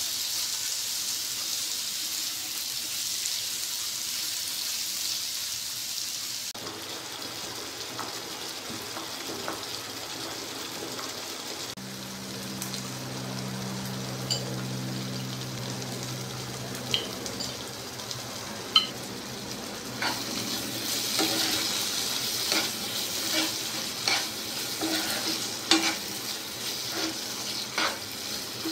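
Chicken pieces sizzling in oil in a nonstick frying pan as they are stirred with a silicone spatula; about six seconds in, the sizzle drops to the quieter simmer of the curry. A low hum runs for several seconds midway, and the spatula clicks and scrapes against the pan, often and sharply in the last third.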